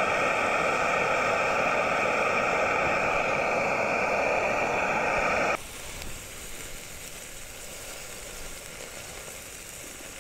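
Dumplings sizzling and steaming in a small cast-iron pan on a gas canister stove just after water was added, a loud steady sizzle mixed with the burner's hiss. A little over halfway through it drops suddenly to a quieter steady sizzle.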